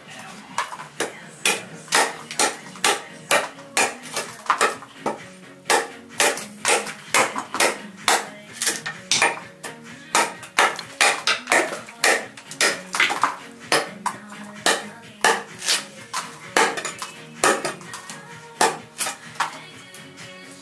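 A large fixed-blade knife striking repeatedly in a chopping test, sharp chops about two to three a second, some with a short metallic ring, over background music.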